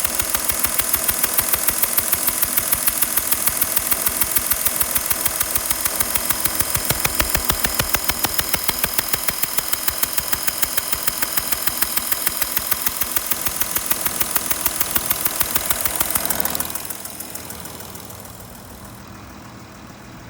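Porsche Cayenne 3.0 V6 diesel engine idling with a rapid, even ticking puff in time with the engine, which the owner suspects is an exhaust leak. Near the end the sound drops away sharply.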